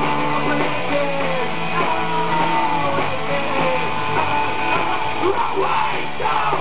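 Live rock band playing: electric guitar and drums, heard at full volume without a break.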